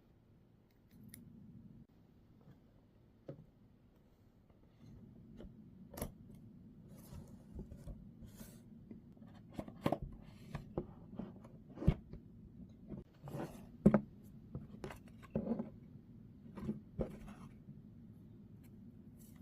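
Packaging handled and opened by hand: a run of irregular sharp clicks and short rustles of cardboard and plastic over a faint steady hum.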